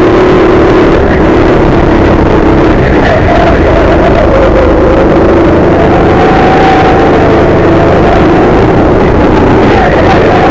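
Go-kart engines running hard on a lap, loud and continuous, their pitch dipping and rising again several times as the karts slow for corners and accelerate out.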